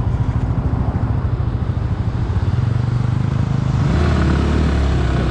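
Yamaha R15 V3's 155 cc single-cylinder four-stroke engine running at low speed in second gear with an uneven, pulsing note. About four seconds in, the throttle opens and the note steadies and grows as the bike accelerates away.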